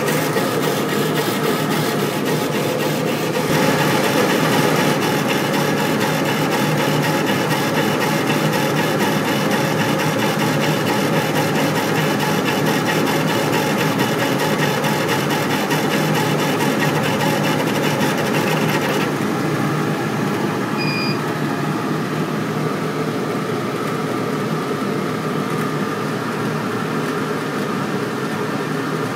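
Epilog laser engraver raster-engraving wood, sped up: a steady mechanical whir with a rapid, even ticking as the head sweeps back and forth. The high end of the sound drops away about two-thirds of the way through.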